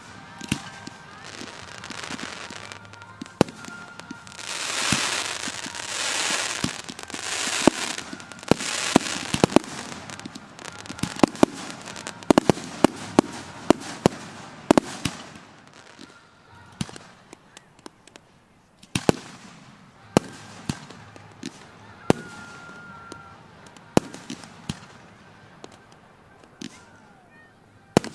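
Fireworks display: aerial shells bursting with sharp booms. A loud hissing, crackling stretch comes about five to ten seconds in, then a rapid run of booms, thinning to scattered single bangs in the second half.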